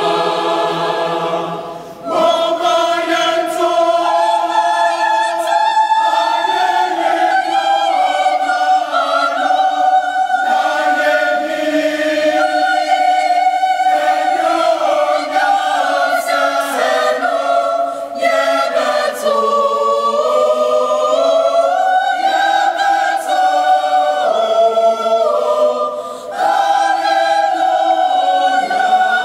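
A large choir of women's and men's voices singing in harmony, holding long notes, with short breaks between phrases about two seconds in and again near the end.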